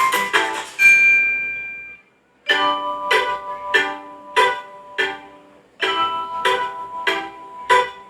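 Redmi phone ringtone: a melody of short notes with sharp starts that ends on a held note. It stops briefly about two seconds in, then starts over.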